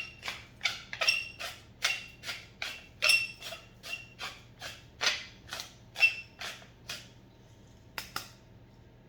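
Pepper grinder being twisted over the ribs: an even run of sharp clicks, about two to three a second, that stops after about seven seconds, with one last click near the end.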